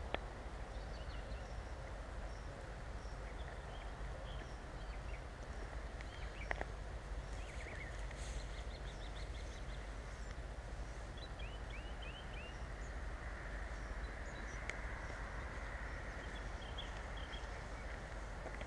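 Outdoor ambience: a steady background rush with small birds chirping and twittering on and off throughout.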